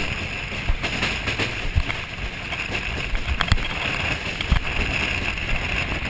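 A wheeled summer bobsled running down a concrete bob track, its wheels making a steady rolling rush and rattle, with scattered sharp knocks as it jolts through the curves.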